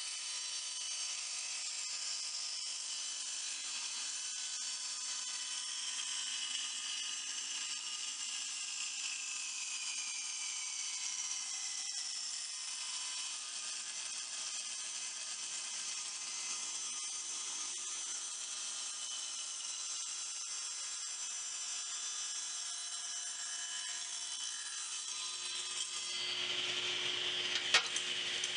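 Table saw running and ripping a strip off a poplar drawer front faced with walnut veneer: a steady high-pitched machine sound whose pitch sags slowly during the cut. Near the end the sound changes and grows a little louder, with one sharp click.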